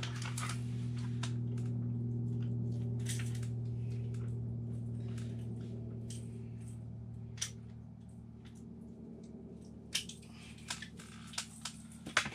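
Small clicks, taps and rustles of a largemouth bass being handled and a jig being unhooked from its mouth. Under them runs a steady low hum that fades away a little past the middle.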